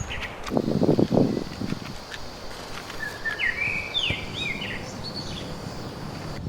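Outdoor ambience with a bird calling a short run of quick chirps about three to four seconds in, over a low rumbling background that swells briefly about a second in.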